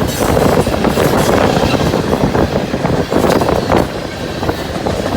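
Loaded coal train rolling past: a steady heavy rumble with steel wheels clicking and clattering irregularly over the rails.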